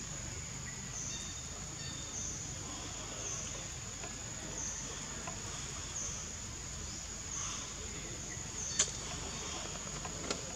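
Steady high-pitched drone of insects, swelling and easing about once a second, with two sharp clicks near the end.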